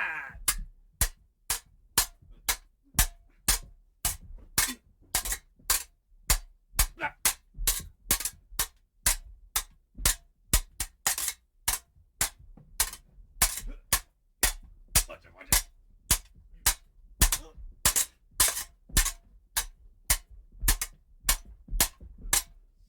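A long, uneven run of sharp clacking hits, about two a second, each with a dull low thud beneath it.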